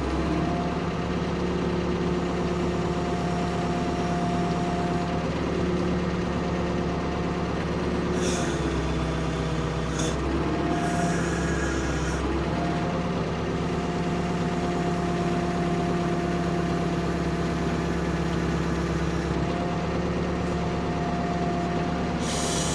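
Ford P-42 excavator engine running steadily under the operator's hand as the boom and bucket work, heard from the cab. The engine note shifts between about 8 and 12 seconds in, with a brief high-pitched hiss around the same time.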